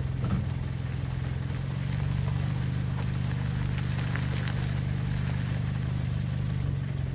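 A steady low hum of an engine running, swelling slightly about six seconds in.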